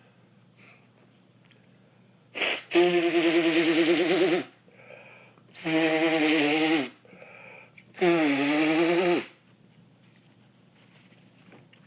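A man sneezing three times, loudly and drawn out, about three seconds apart. Each sneeze starts sharply and carries on into a voiced cry lasting over a second, with short breaths in between.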